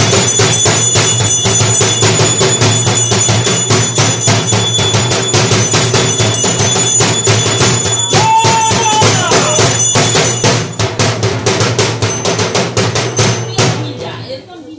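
Dhak drums beaten in a fast, steady rhythm with a metallic ringing over them, for the boli sacrifice at Durga Puja. About eight seconds in a brief held tone sounds over the drumming, and in the last few seconds the drumming thins and fades.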